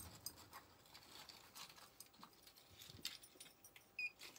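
Faint clicks of small items being handled, then one short, high beep from a handheld barcode scanner near the end as an item is scanned.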